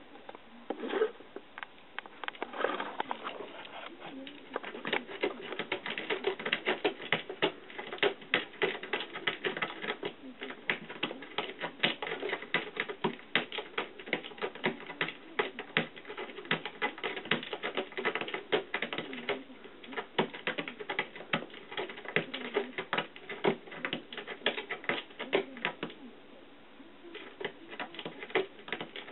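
A cat clawing at a scratching mat with its front paws: rapid, uneven runs of scratching clicks, with a few short pauses and sparser scratches near the end.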